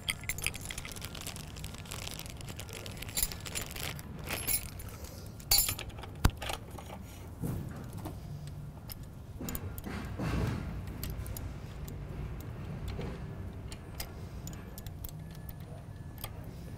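Small metallic clicks and clinks of a 6 mm Allen wrench working the wedge bolt of a bicycle's quill stem in the head tube, with a few sharper clicks scattered through.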